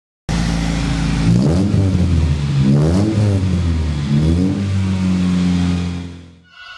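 Mitsubishi Eterna GTi's engine heard through its twin-tip NDK aftermarket exhaust: idling, blipped up in revs three times and dropping back, then settling to a steady idle before fading out near the end.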